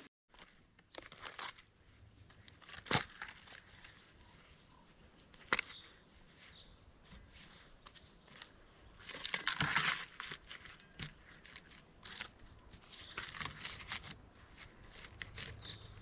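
Gloved hands working dry pine bark and sand around a chimney pipe: crunching, rustling and scraping, with two sharp snaps about three and five and a half seconds in. There is a busier stretch of handling about nine to ten seconds in.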